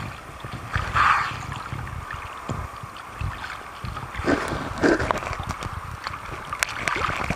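Choppy sea water sloshing and gurgling around a camera held at the surface, with louder splashes about a second in, around four to five seconds in, and near the end.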